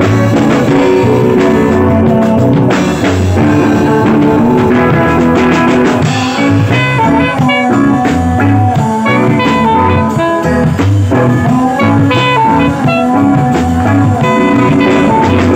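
Alto saxophone playing a melody over a reggae band accompaniment with guitar and drums keeping a steady beat.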